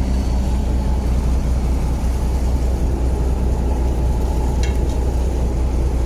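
A fishing boat's engine running steadily, a low, even hum with no change in speed.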